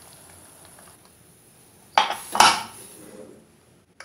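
Aluminium pressure cooker lid being fitted onto the cooker: two sharp metal clanks about half a second apart, halfway through, with a short ring after each.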